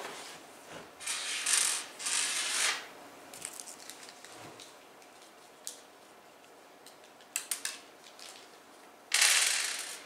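A computer case being handled: scraping, sliding noises about a second in, again about two seconds in and loudest near the end, with a quick cluster of sharp clicks about seven and a half seconds in.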